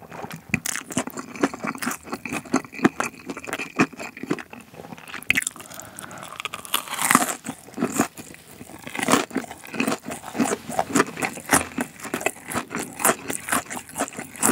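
Close-miked chewing of a bite of Korean corn dog, a sausage in a crisp fried potato-cube crust: dense sharp crunches, several a second.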